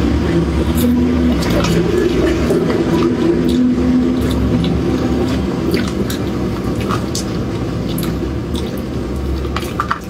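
Metal spoon scraping and clicking in a plastic cup of soft cream dessert, with wet squishy eating sounds, over a steady low hum.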